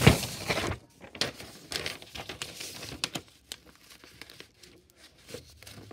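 A sheet of paper being handled and folded, crinkling and rustling in many short, uneven bursts. It opens with a loud rustle as something brushes right against the microphone, then the rustles grow quieter toward the end.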